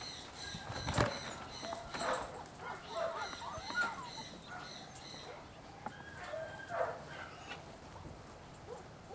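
Puppies whining and yipping in short, wavering calls, with a knock about a second in.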